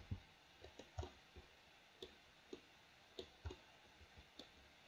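Faint, irregular clicks of a computer mouse and keyboard, about a dozen of them, as bones of a 3D model are rotated and moved with key shortcuts and mouse clicks.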